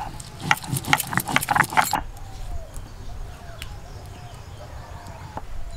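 A stone muller rubbed back and forth on a flat grinding stone (sil-batta), wet-grinding soaked dried red chillies and cumin into a paste. It makes a quick run of rough scraping, clattering strokes for about two seconds, then drops suddenly to a quieter stretch with only an occasional knock.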